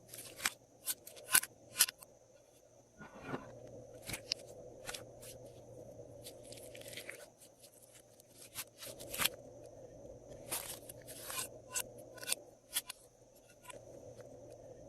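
Glossy slime and the items being mixed into it, worked by hand close to the microphone: irregular sharp clicks and pops, with a short crackle about three seconds in and another a few seconds later.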